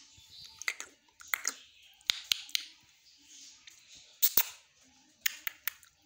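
A dozen or so sharp, irregular clicks and taps, some in quick pairs, with the loudest pair about four seconds in.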